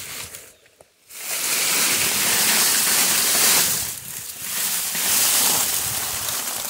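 Loud rushing, rustling noise in two spells, starting about a second in and dipping briefly about four seconds in: a steel drum being pulled over a load of coconut-shell charcoal, the charcoal shifting and spilling out.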